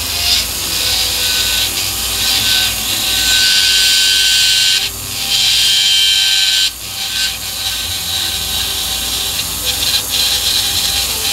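High-speed power tool grinding or cutting hard material, a steady hiss over a faint whine, easing off briefly about five and about seven seconds in.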